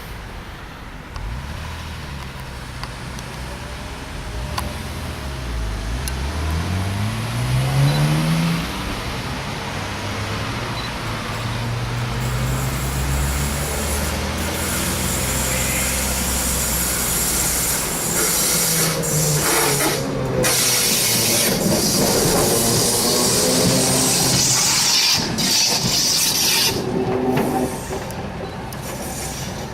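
Electric tram pulling away, its traction motors whining up in pitch over a few seconds. Then loud, steady wheel-on-rail rolling noise as tram cars pass.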